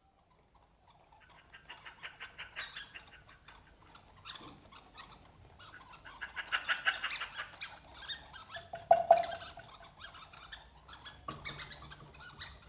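Soft percussion sound effects: rapid clicking and rattling in uneven flurries, with a brief whistle-like tone about nine seconds in, suggesting jungle creatures.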